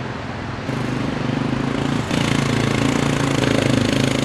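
Royal Enfield Bullet motorcycles' single-cylinder engines running as the bikes are ridden over rough rocky ground, growing louder about a second in and again about two seconds in as they come closer.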